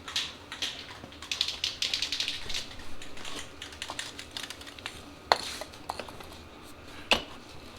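Light clattering and clinking of small hard objects being handled and moved about, densest over the first three seconds, then a few separate sharp clicks, the loudest about five and seven seconds in.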